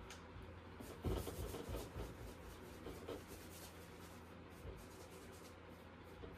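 Paintbrush strokes on canvas: a run of short, rough scrubbing strokes, busiest and loudest between about one and two seconds in, over a faint steady hum.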